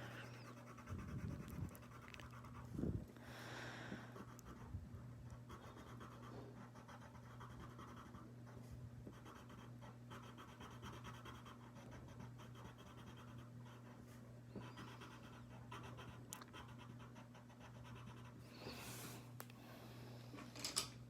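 Faint scratching of colouring strokes on paper over a steady low electrical hum.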